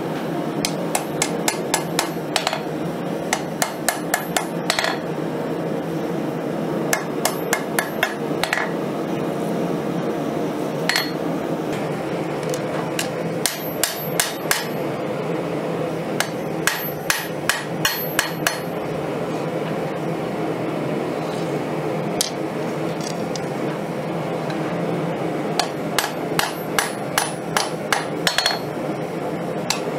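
Hand hammer striking a glowing 5160 leaf-spring steel blade on an anvil: runs of quick blows, each with a high metallic ring, broken by pauses, over a steady background hum.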